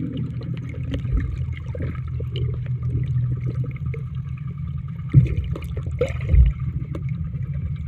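Muffled underwater noise picked up by a submerged camera: water gurgling over a steady low rumble, with two heavier thumps about five and six seconds in.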